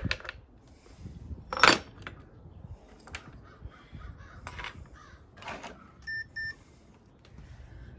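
Pieces of scrap brass clinking and knocking as they are set into a container on a scale, about five separate strikes, the loudest a couple of seconds in. Two short electronic beeps sound close together about six seconds in.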